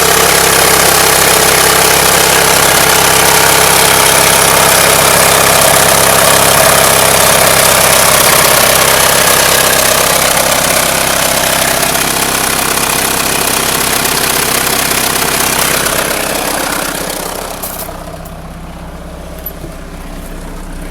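1997 Mitsubishi Eclipse engine idling with a rapid knocking that seems to come from the timing belt area, which the owner has heard might be the lifters. Loud at first, it turns clearly quieter and duller about three seconds before the end.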